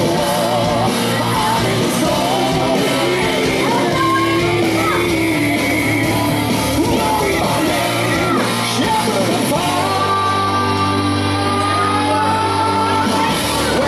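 Rock song with a sung vocal and guitar, playing steadily.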